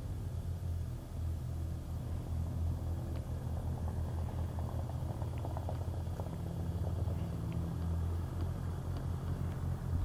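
De Havilland Tiger Moth's Gipsy Major four-cylinder engine running with a steady low drone as the biplane rolls along the runway.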